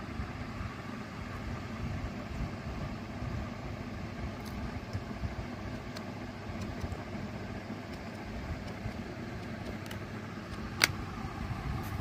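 Steady low background hum with a few faint clicks and one sharp click about eleven seconds in.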